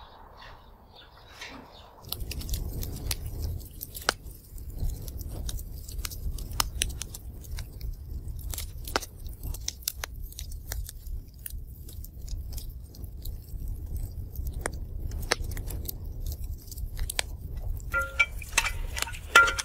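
Irregular clicking and knocking of a metal ladle, pot and bowls as stew is served, over a low rumble. Near the end come several ringing metal clinks.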